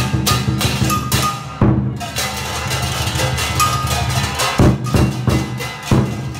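Lion dance percussion: a big drum beating a fast, driving rhythm with crashing cymbals over it.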